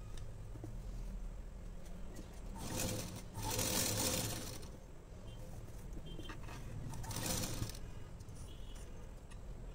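Cloth rustling and sliding as pieces of a blouse are handled and folded on the table: one longer burst about three seconds in, a shorter one about seven seconds in, and a few light clicks over a low hum.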